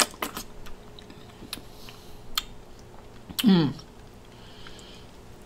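Close-up eating sounds: chewing with sharp crunching clicks, and a short falling hum from the eater about three and a half seconds in.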